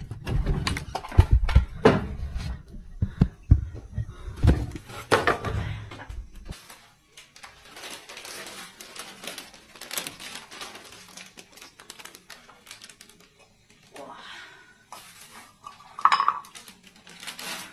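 Heavy rumble with knocks and handling noise for the first six seconds or so, which cuts off abruptly. Then come quieter clinks and clatter of cooking pots and utensils, with one louder clatter near the end.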